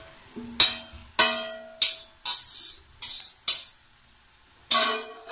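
A spoon knocking and scraping cooked rice out of a stainless steel bowl, making a series of sharp, ringing metallic clinks, about seven in all, with a pause before the last.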